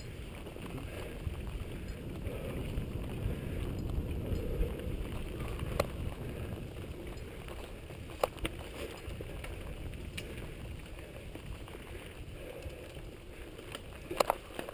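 Mountain bike rolling fast along a dirt singletrack: a low rumble of tyres on the trail and wind buffeting the camera's microphone, with occasional sharp clicks and knocks as the bike rattles over bumps, several in quick succession near the end.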